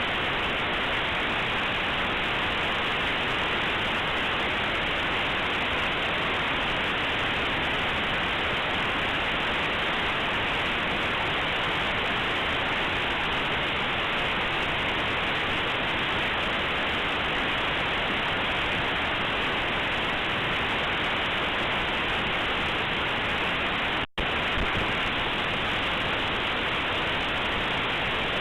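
A compressed Linux kernel image played as raw audio through aplay: a steady, featureless hiss like white noise, with nothing above about 4 kHz. It cuts out for an instant about 24 seconds in.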